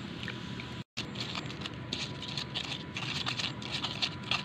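Wooden pestle (ulekan) crushing and grinding chilies in a clay mortar (cobek): quick repeated scraping, crunching strokes, several a second, starting about a second in.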